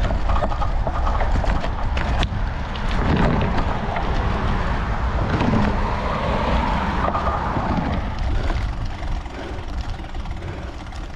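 Bicycle rolling on a loose gravel and sand dirt road: steady wind rumble on the microphone with tyre crunch and scattered clicks and rattles from the bike.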